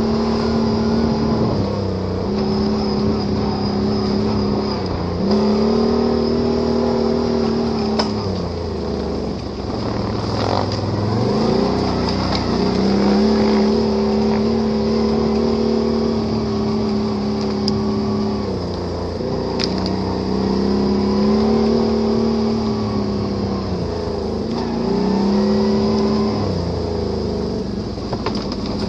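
Can-Am Renegade ATV's V-twin engine running off-road, its revs climbing and dropping about seven times as the throttle is opened and eased off, with a few sharp knocks along the way.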